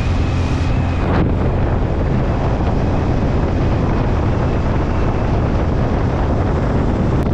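Heavy wind rushing over the microphone at riding speed on an open two-wheeler, with the vehicle's engine running steadily underneath.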